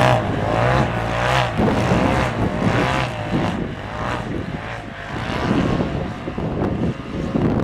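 Off-road vehicle engine revving up and down again and again, its pitch rising and falling every second or so.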